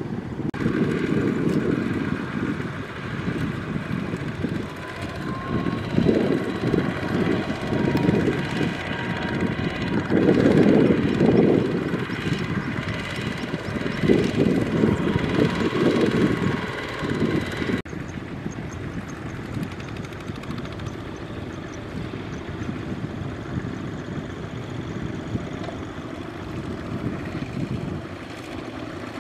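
Kubota ZT120 single-cylinder diesel engines of two-wheel walking tractors (power tillers) running under load, hauling trailers of rice sacks, the engine sound swelling and dipping. After a sudden change about 18 s in, a single engine runs at a steadier, quieter note.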